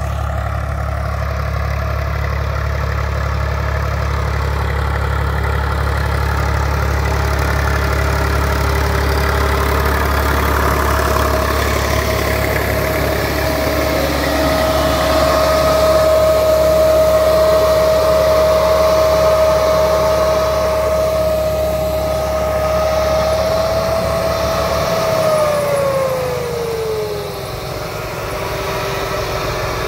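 IMT 549 tractor running in the field with an Agria pneumatic corn planter mounted behind: a steady engine drone with a whine over it. About 25 seconds in, the whine slides down in pitch and the low rumble drops away.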